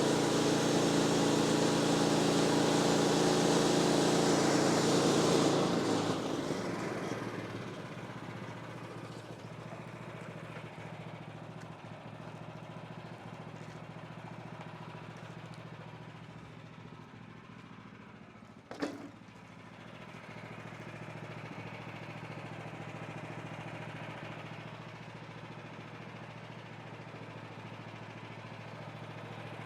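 Portable band sawmill's gas engine running, with loud sawing noise for about the first six seconds as the blade works through a post oak log. The noise then falls away and the engine runs on more quietly and steadily. A single sharp click comes about two-thirds of the way through.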